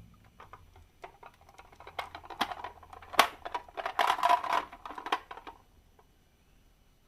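Marbles rolling and clattering down a marble run track: a rapid run of small clicks and rattles that starts about a second in, is loudest in the middle, and stops about two thirds of the way through.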